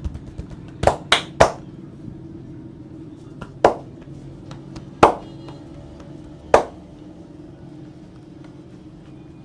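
Sharp hand slaps and chops of a barber's massage on head and back: three quick strikes about a second in, then three more single strikes spaced over the next few seconds, over steady background music.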